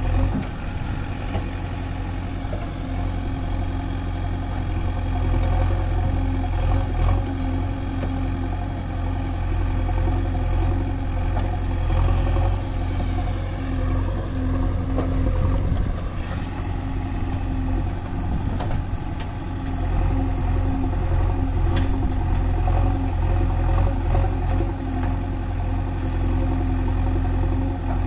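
JCB 3DX backhoe loader's diesel engine running steadily under load as the backhoe digs and dumps soil, swelling and easing every few seconds as the hydraulics work, with an occasional light knock.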